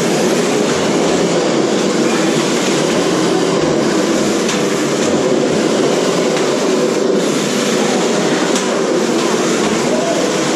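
Several 1/10-scale radio-controlled cars running at once: a steady, dense mechanical whir of motors, gears and tyres. A few sharp knocks of cars hitting each other stand out.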